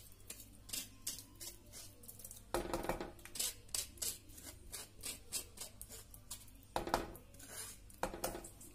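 Wooden spoon tapping and scraping against a metal mesh strainer as cooked rice ada is knocked off into milk in a pressure cooker: a string of light clicks and scrapes, louder about three seconds in and again near the end.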